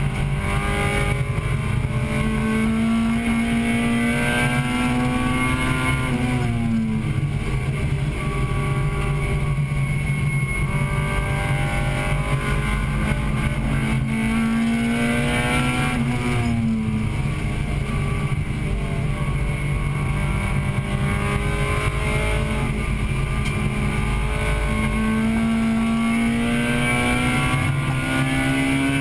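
1998 Acura Integra Type-R's 1.8-litre VTEC four-cylinder heard from inside the cabin while racing. The engine note climbs steadily under throttle for several seconds, then falls away sharply, twice, and climbs again near the end, over loud road and wind noise.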